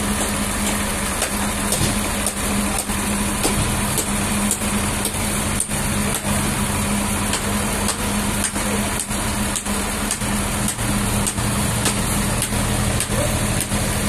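Toyota forklift engine running steadily as it holds a heavy log, a steady hum with frequent light knocks over it.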